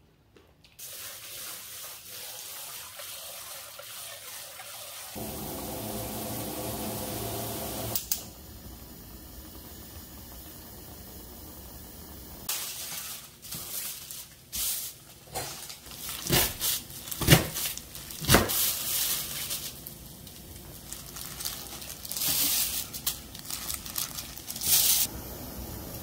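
Running water for the first half, louder and fuller for a few seconds in the middle. Then a thin plastic bag is crinkled and handled, with many sharp crackles and small knocks.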